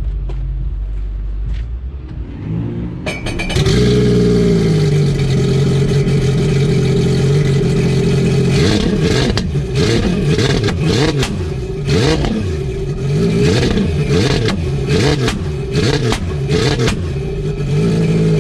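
Jet ski engine catching about three and a half seconds in and settling to a steady idle. From about halfway through it is blipped up and down in quick revs, roughly once a second: a test run after a new rear exhaust install.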